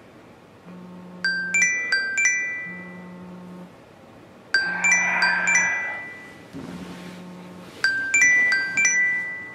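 Mobile phone ringing for an incoming call: a chime-like ringtone plays a quick phrase of four bell-like notes, repeated three times about every three and a half seconds. Under it the phone's vibration motor buzzes in pulses about a second long.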